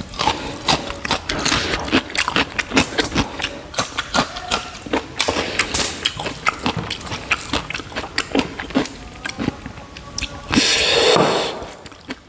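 Close-miked eating sounds: wet chewing and mouth smacking on pork and rice, with fingers squishing rice into curry gravy on a metal plate. Irregular clicks and smacks throughout, with a louder rushing swell about a second long near the end.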